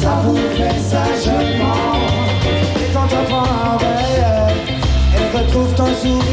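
Live reggae band playing, with a male singer's voice over a steady pulsing bass line and drums.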